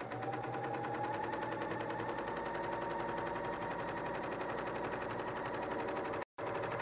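Serger running a two-needle narrow cover stitch at steady speed: a rapid, even stitching clatter with a motor whine that rises a little in the first second, cut by a split-second break near the end.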